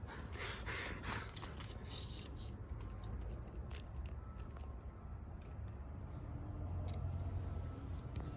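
Light irregular clicks and scrapes of small hardware being handled: screws being worked into a handlebar kill-switch clamp, over a low steady hum.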